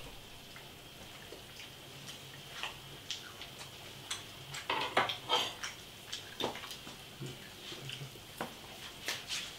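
Light, scattered clicks and taps of kitchen utensils and crockery, with a small cluster about five seconds in, over a faint steady hiss.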